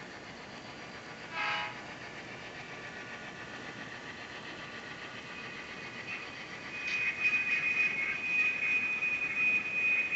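EMD GP9 diesel locomotive sounds: a short horn toot about a second and a half in, then from about seven seconds a loud, steady high-pitched tone with a rattling, fluctuating noise under it.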